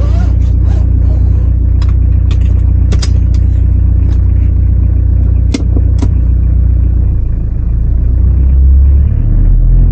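Mitsubishi L200's 2.5-litre diesel engine running steadily just after a cold start, its freshly fitted cylinder head sounding good. A few sharp clicks sound over it, and the engine note shifts near the end.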